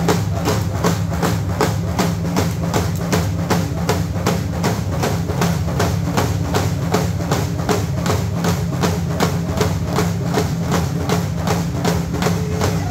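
A group of Dene hand-game frame drums, hide stretched over round wooden frames, beaten together in a fast, even beat.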